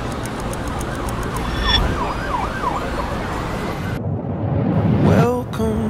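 City traffic noise with an emergency-vehicle siren wailing up and down. About four seconds in it cuts off suddenly into a low rumble with a rising swept tone, and a few steady musical notes come in near the end.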